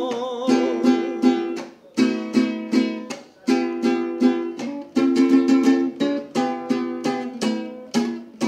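Instrumental break of a song: a plucked string instrument strumming chords in a steady rhythm. The last sung note, held with vibrato, dies away about half a second in.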